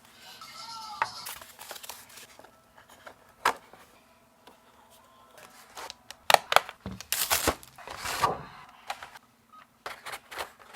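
Keyboard unboxing handling: scattered plastic clicks and knocks, with a burst of rustling packaging about seven to eight seconds in.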